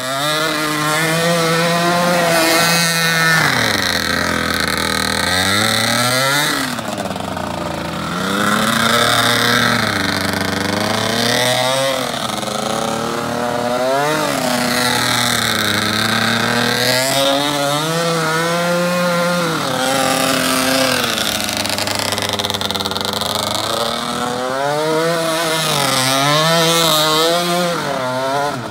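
DRR 100 racing quad's small engine revving up and down as it is throttled through drifts, its pitch rising and falling every couple of seconds.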